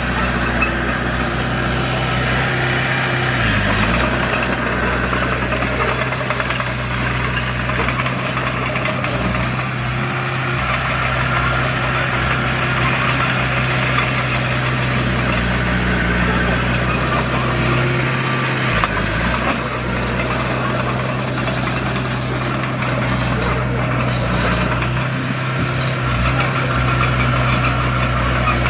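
Heavy diesel engine of a construction machine running steadily, its pitch dipping briefly twice, a few seconds in and again past the middle.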